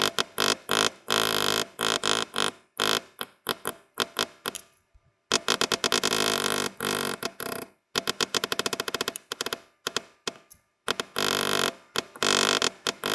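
A small backgrounder stamp struck rapidly with a mallet on tooling leather, several sharp taps a second in runs broken by short pauses, pressing down the background around carved letters.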